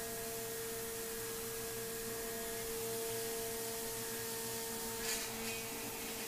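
Thermwood 5-axis CNC router running unattended while it machines a polyethylene part with a carbide cutter: a steady whine over a constant hiss. A brief hissing burst comes about five seconds in.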